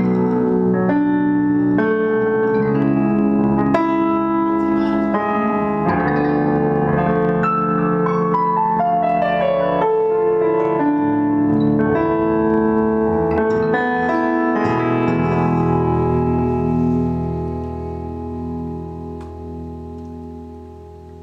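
A small rock band with electric guitars, drums and a keyboard playing together, the keyboard to the fore in sustained piano-like chords. A run of notes falls in pitch partway through, and the music fades away over the last few seconds.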